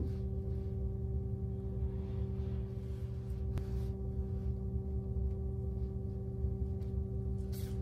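Steady hum made of several fixed tones over a low rumble, unchanging throughout, with a faint click about three and a half seconds in.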